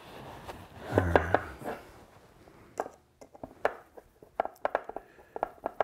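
Screw being driven into a wooden drawer front with a hand Phillips screwdriver: quick, irregular clicking and creaking as the screw turns, thickening near the end. A louder handling noise comes about a second in.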